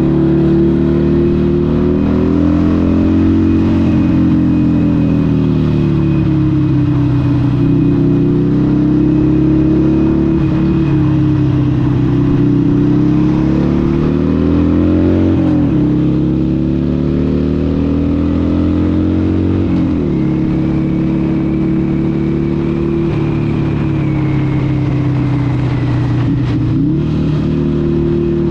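Harley-Davidson 883 SuperLow's air-cooled 883cc Evolution V-twin running through a Vance & Hines exhaust while riding. The revs rise and fall, with several quick drops.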